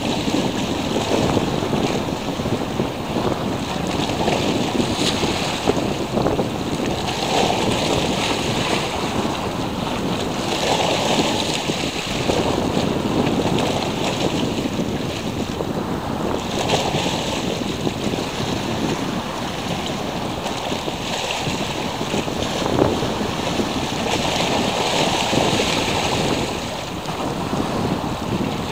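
Sea waves washing in, a rushing hiss that swells and fades every few seconds, with wind blowing on the microphone.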